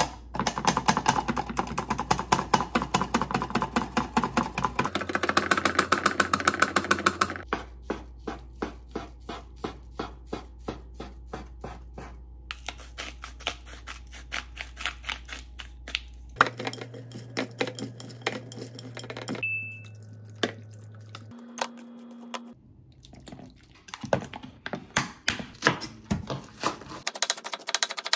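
A cucumber is pushed over a plastic mandoline slicer into a glass container in rapid, dense slicing strokes, followed by a slower, even run of kitchen strokes and knocks. Near the end a kitchen knife chops green onions on a wooden cutting board in quick, regular taps.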